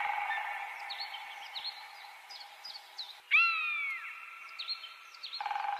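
Elephant calling: a high, bending trumpet-like squeal about three seconds in, with small repeated chirps and a steady high background hum throughout.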